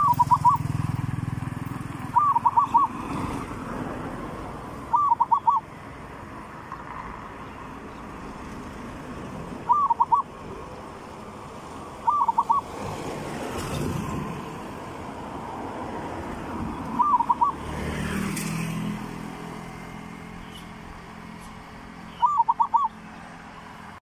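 Zebra dove cooing: short bursts of three or four quick notes, repeated seven times at uneven gaps of two to five seconds, over a faint background rumble.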